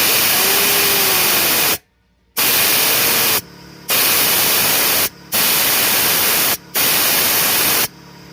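Five loud bursts of rushing hiss from compressed air, each cut on and off sharply, blown through the BMW N54's failed front turbocharger to test how freely it spins; a faint whistle rises and falls in pitch during the first bursts.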